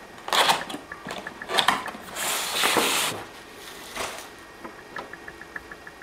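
Packaging being handled as a small electric grill is unpacked: cardboard and foam sliding and a plastic bag crinkling, in several bursts, the longest about two to three seconds in.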